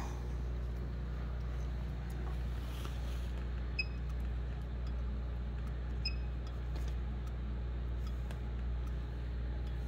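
Steady low electrical hum with two short, high electronic beeps about two seconds apart, from the inkjet coder's touchscreen controller as it reports the cartridge is not installed.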